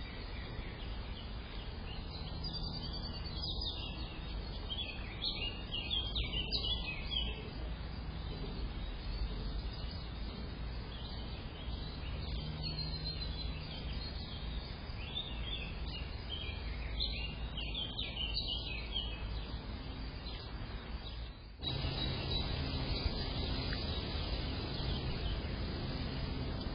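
Small garden birds chirping in quick clusters of short, high calls, over steady background noise from an outdoor camera's microphone. About 21 seconds in, the background noise changes abruptly to a louder, steadier hiss and hum.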